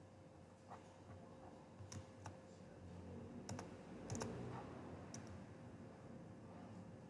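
Faint, scattered clicks from computer use at a desk, a few single clicks spread a second or so apart, over quiet room tone.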